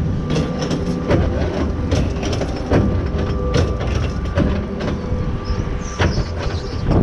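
Log flume lift conveyor carrying the boat up the first hill: a steady mechanical hum and rumble with clanks about once a second.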